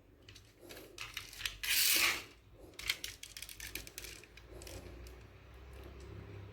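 A toy car being handled: a run of small sharp clicks and knocks, with one louder scrape about two seconds in that lasts half a second.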